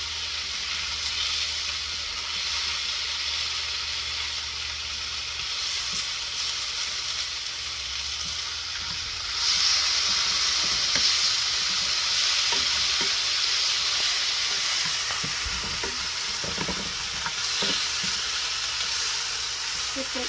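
Shrimp sizzling in hot oil in a pan, a steady frying hiss that grows louder about halfway through. A few short knocks of the stirring utensil against the pan come in the second half.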